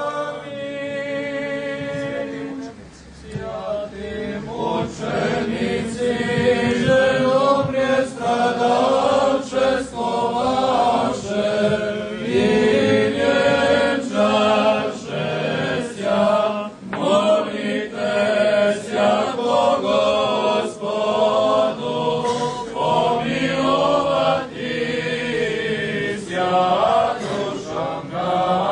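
A group of voices singing Serbian Orthodox liturgical chant, from the service of the blessing of water, with a short pause about three seconds in.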